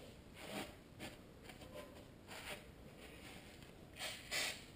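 Aerosol can of mass airflow sensor cleaner sprayed onto a rear brake disc in several short hissing bursts, the strongest pair near the end, degreasing the disc surface.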